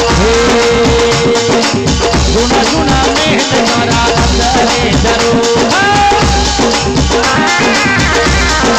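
Instrumental break of Rajasthani folk devotional music: a lead melody of long held notes that bend in pitch, over busy drum and rattle percussion.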